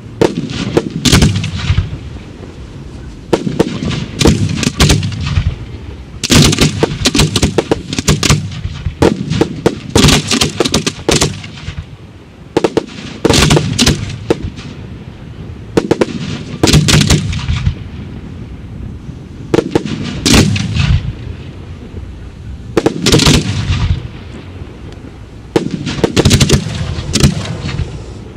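Firework shells fired from mortars going off in a display: repeated clusters of sharp bangs and crackling, a fresh cluster every two to three seconds, each followed by a low rumbling echo.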